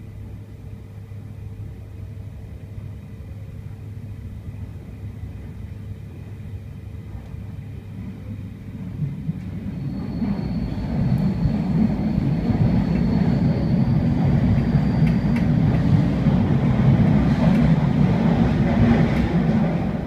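Sydney Trains S set double-deck electric train rumbling along the track, heard from inside the carriage. The rumble grows louder about halfway through and stays loud.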